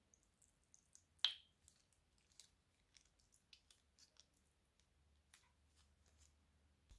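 Faint wet squishing and small crinkly ticks as pink clay slime is squeezed out of a cut plastic bag into a glass bowl, with one sharp click and a brief ring about a second in.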